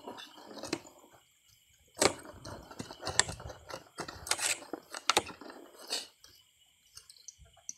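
Wet squishing with irregular clicks and knocks as live rice eels writhe and are handled by hand in a plastic crate, busiest from about two seconds in.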